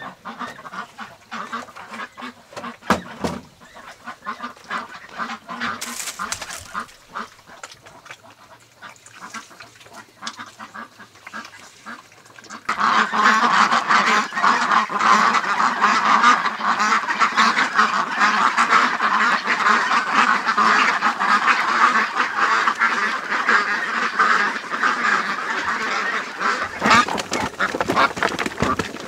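A flock of domestic ducks quacking. At first the calls are scattered and fainter, with a few knocks. About halfway through, a loud, dense chorus of quacking starts suddenly as the ducks crowd around a basin of feed.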